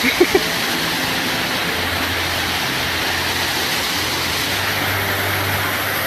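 Small mountain waterfall rushing steadily, a constant hiss of falling water with a low rumble underneath.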